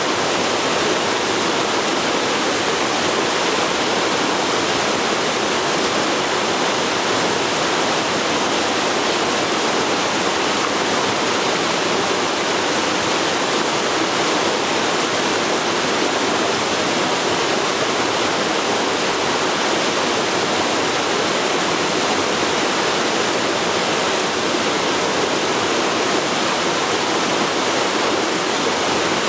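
Forest river flowing, a steady rushing of water over rocks.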